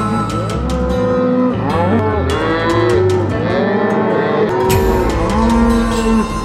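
Many Angus cows and calves bawling and mooing at once, their calls overlapping one after another, over background music with a steady bass line.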